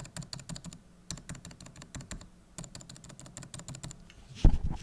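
Typing on Kailh Deep Sea silent switches under DSA-profile keycaps: three quick runs of soft, light key clicks, followed by a single heavier low thump near the end.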